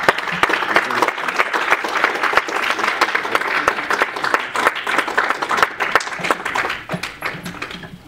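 Audience applauding: many hands clapping in a dense, even patter that thins out near the end.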